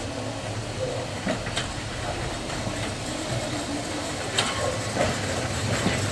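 Electric tram (a Manx Electric Railway crossbench car) running slowly over pointwork, its wheels giving a few sharp, irregular clicks over a steady low hum, growing slowly louder as it comes closer.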